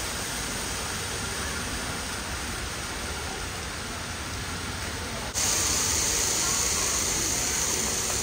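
Steady hiss of background noise with no distinct events, which steps abruptly louder and brighter a little over five seconds in and then holds level.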